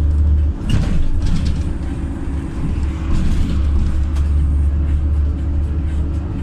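Inside a LiAZ 5292.67 city bus on the move: the steady low drone of its YaMZ-53624 compressed-natural-gas engine, dipping briefly about half a second in, with a few rattles and knocks from the body about a second in.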